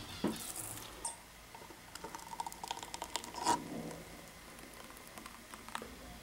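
Faint, scattered small clicks and soft liquid sounds, busiest around the middle, as a thick blended kiwi drink is sipped through a straw and poured from a plastic blender jug into a small plastic cauldron.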